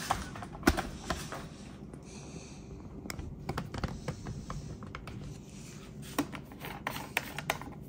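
Scattered light clicks and taps of small items being handled on a cluttered workbench, irregular and uneven in strength, over a low steady hum.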